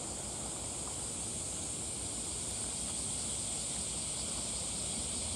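Steady high-pitched insect drone with a low rumble of wind underneath.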